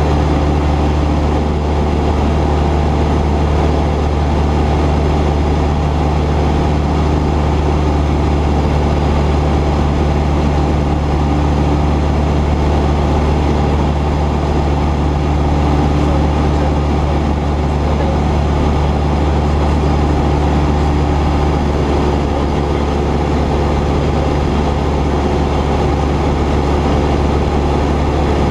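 Cessna 172's piston engine and propeller running at steady power in flight: a constant low drone with no change in pitch or level.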